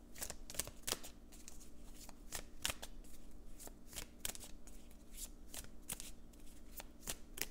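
A deck of cards being shuffled by hand: a string of soft, irregular card snaps and flicks, a few a second.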